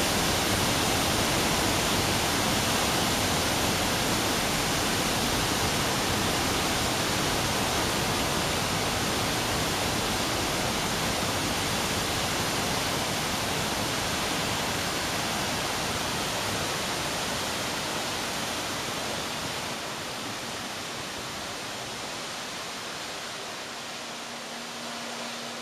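Steady rushing roar of two discharge jets of water shooting from outlets in the face of a concrete arch dam and crashing into the basin below. The roar grows gradually quieter over the last several seconds.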